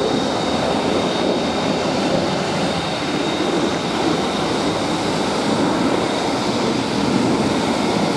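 Airbus A380 taxiing, its four Engine Alliance GP7200 turbofans running at taxi power: a steady rush of jet noise with a faint thin high whine.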